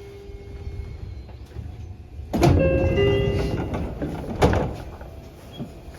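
Seibu 30000 series train's door-closing chime, the low-pitched version found on some doors of car 38307, sounding a few steady notes as the sliding door starts to close. About two seconds later the door shuts with a loud knock.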